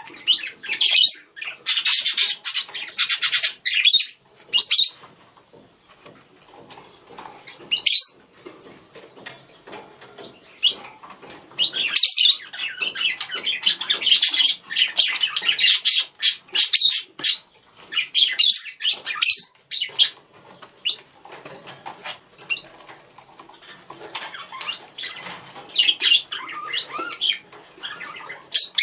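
Budgerigars calling to each other with rapid high chirps, warbles and squawks. The chatter comes in busy bursts with quieter gaps between.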